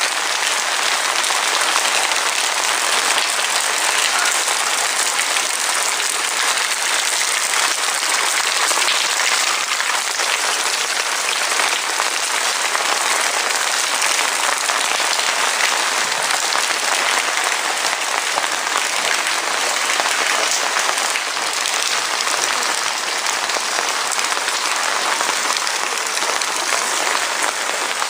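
Heavy rain falling in a steady, even hiss of dense drops.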